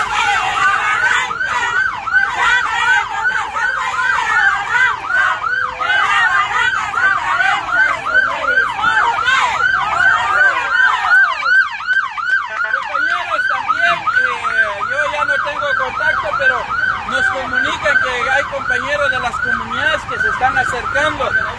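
Electronic siren in a fast yelp, its pitch rising and falling about three to four times a second without a break.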